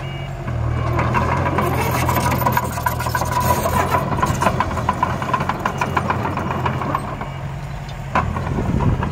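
Diesel engine of construction machinery running under load, with metallic clanking and rattling throughout. The engine picks up about half a second in, eases off around seven seconds, and rises again near the end.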